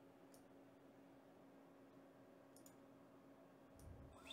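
Near silence: faint room hum with a few soft computer mouse clicks.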